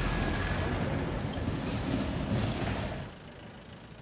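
An SUV driving past close on a dirt road, its engine running and its tyres crunching over the gravel with some rattling. The sound cuts off suddenly about three seconds in, leaving a quieter steady background.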